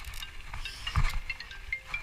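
Small bite bells on a fishing rod jingling in short, irregular clinks, the sign of fish biting at the bait, with a dull thump about a second in.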